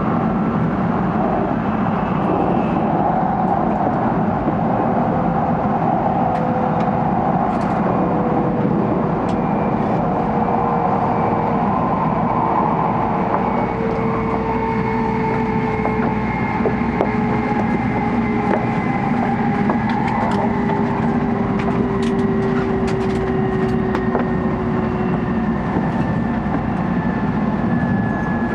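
N700A Shinkansen train running at speed, heard inside its vestibule deck: a steady rumble with faint whining tones that slowly fall in pitch, and scattered light clicks.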